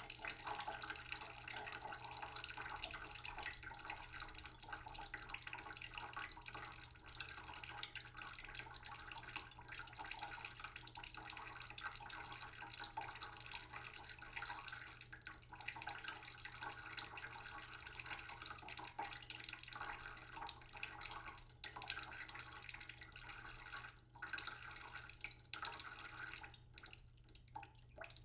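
Pieces of purple cauliflower and purple potato sizzling and crackling in oil in a frying pan, a steady fine crackle that dies down near the end.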